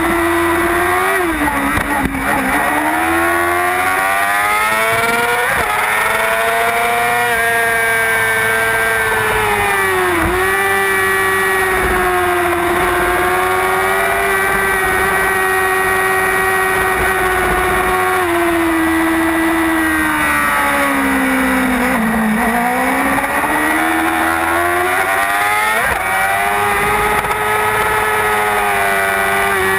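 Race superbike's engine at racing speed, heard from the onboard camera, held at a high steady pitch for long stretches. The pitch dips about a second in and again around ten seconds in, falls slowly and climbs back up in the second half, and dips once more near the end, as the rider eases off for corners and gets back on the throttle.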